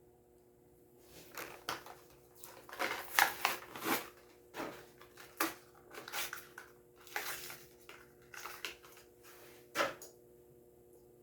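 Hot Wheels blister pack being torn open by hand: irregular crackling and snapping of plastic and cardboard, densest about three seconds in, with one last sharp snap near the end.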